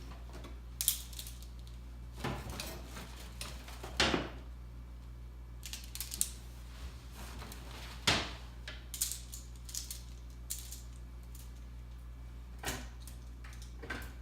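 Clothes hangers clicking and scraping on a newly mounted closet rod as jackets are hung on it: a string of irregular clicks and short rustling scrapes, the loudest about 4 and 8 seconds in, over a steady low hum.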